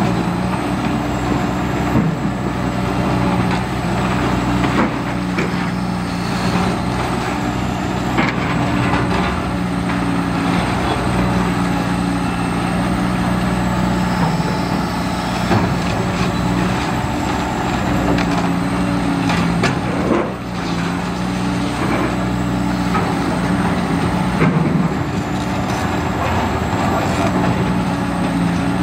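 Diesel engine of a heavy demolition excavator running steadily under load, with scattered cracks and knocks of reinforced concrete being crushed by its demolition shear.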